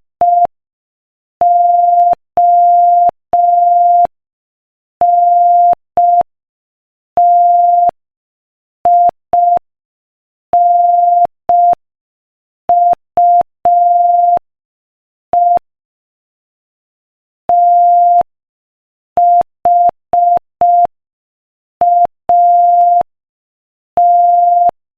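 Morse code sent at 5 words per minute as one steady beep tone switched on and off in short dits and long dahs, with silent gaps between letters and words. There is a faint click each time the tone starts and stops.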